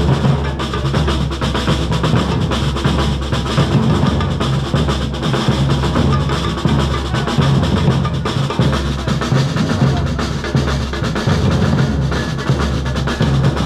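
A marching drum band of snare drums and bass drums playing a fast, continuous beat without a break.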